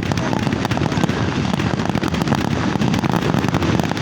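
Fireworks display: a dense, continuous crackle of many small bursts at a steady loudness, with no single bang standing out.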